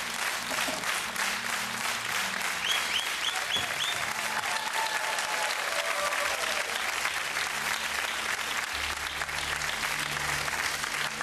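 Studio audience applauding steadily as the timed shelf assembly finishes.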